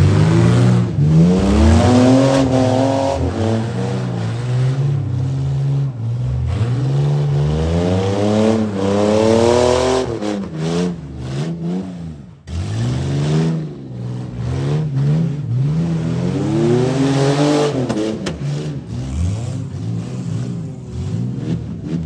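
Demolition derby car engines revving hard and easing off again and again, the pitch climbing with each burst of throttle as the cars accelerate.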